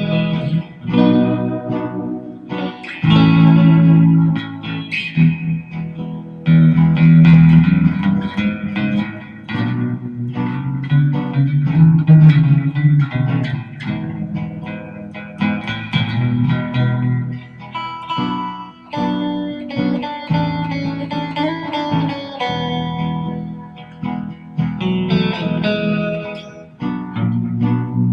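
Stratocaster electric guitar played through effects, single notes and chords over a looped guitar part from a Ditto looper pedal playing underneath.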